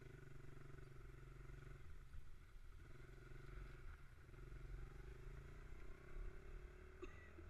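Mini bike's small engine running as it is ridden, heard faintly with a steady hum that drops off briefly twice and rises in pitch near the end.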